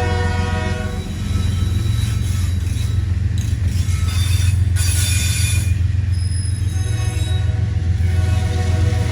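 Locomotive air horn sounding a chord as a train passes, fading out about a second in and blowing again about seven seconds in, over a heavy low rumble from the train. High wheel squeal rises in the middle.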